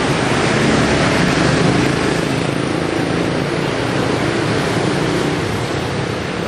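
Steady road traffic noise with engines running past, loud and continuous.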